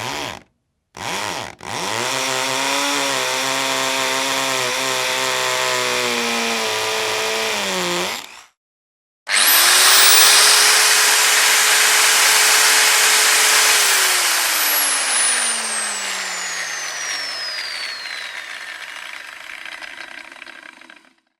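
Power drill run in several takes. Two short trigger blips come first, then a run of about six seconds that winds down when released. After a pause a second run spins up to a high whine, holds, and then slowly winds down with falling pitch as the chuck coasts to a stop.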